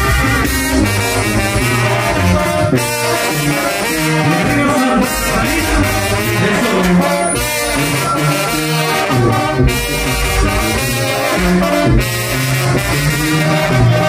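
Mexican brass band (banda de viento) playing: trumpets and trombones carry the tune over steady drum hits.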